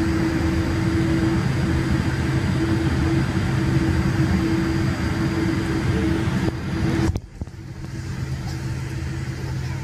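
Steady jet-engine and cabin drone inside a Boeing 787 Dreamliner, a low hum with a steady droning tone. About seven seconds in it drops abruptly to a quieter level and carries on.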